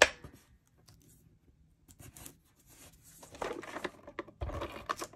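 Cardstock, ribbon and a plastic case being handled on a craft table: a sharp click right at the start, then paper rustling and scraping, with a dull thump about four and a half seconds in.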